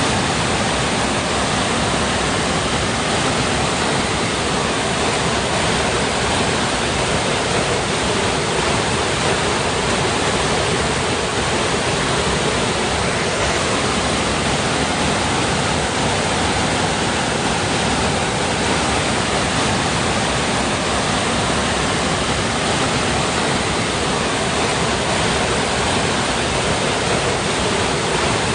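Water rushing over rocks in a steady, unbroken stream, with no rise and fall of waves.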